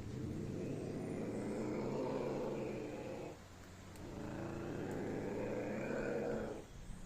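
Ocelot calling: two long, rough calls with a brief pause between them, the first about three seconds long and the second about two and a half.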